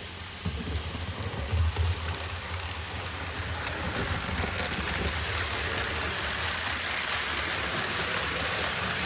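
HO scale Roco E10 model electric locomotive hauling container wagons along the track: a steady rumble of small metal wheels on the rails with the motor running. It grows louder and hissier about a third of the way in as the train comes close and passes.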